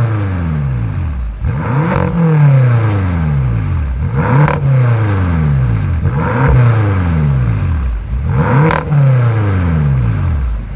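BMW F10 M5's twin-turbo V8 on its stock exhaust, with a Stage 1 remap, being revved repeatedly while stationary. The pitch climbs and falls back about every two seconds, four revs in all.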